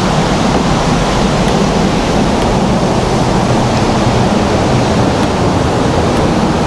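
Waterfall pouring steadily, a loud even rush of water, with the falls running full and heavy.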